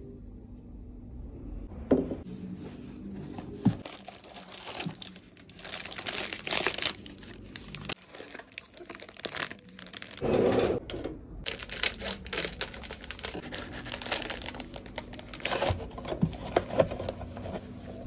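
Crinkly foil wrapping being crumpled and pulled apart by hand: a dense crackle in a long run of handling, with a short pause about halfway and a few sharper knocks as the package is moved.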